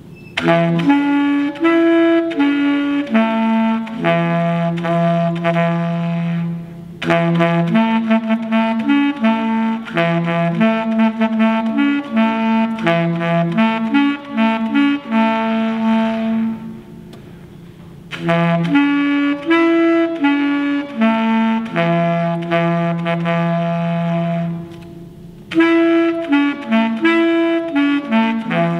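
Solo saxophone playing a slow melody of held notes in phrases, with short breaks between phrases about 7, 17 and 25 seconds in.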